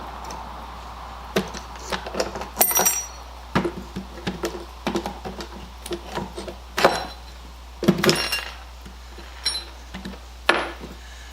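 Loose screws and small steel fittings being handled and set down on wood: a dozen or so irregular clinks and knocks, a few ringing briefly like metal.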